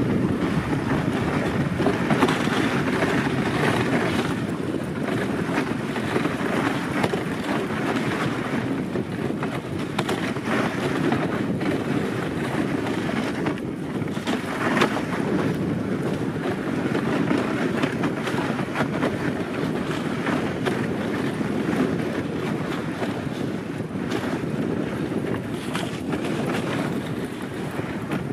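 Dog sled moving over snow: a steady rushing of the sled's runners on the snow, mixed with wind buffeting the microphone.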